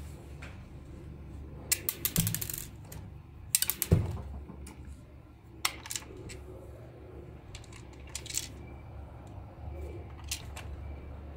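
A hard plastic toy casing being handled and turned over: scattered light clicks, taps and clinks in small clusters, the loudest a knock about four seconds in.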